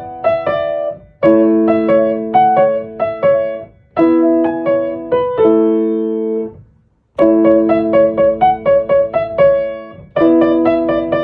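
Background music: a piano playing short phrases of light, bright chords, pausing briefly between phrases.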